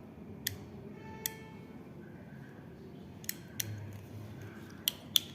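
Hand ratcheting crimping tool clicking as its handles are squeezed to crimp a lug onto a 1.5 mm wire: about six sharp, separate clicks spread over a few seconds.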